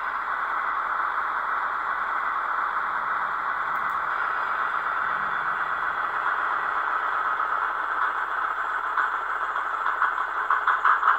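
Zimo MX645 sound decoder in a Roco ÖBB 2143 model locomotive playing its factory 12-cylinder diesel engine sound through twin small sugar-cube speakers. It is a steady engine sound with almost no deep bass, and near the end it turns into a quick, even throbbing.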